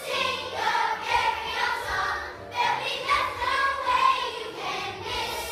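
A large group of children singing together in a stage musical, with a brief pause between phrases about two and a half seconds in.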